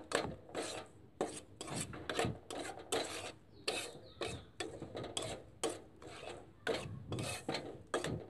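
Steel spoon scraping and stirring oil-coated mustard oil cake granules in a frying pan. It makes a rasping stroke about two or three times a second.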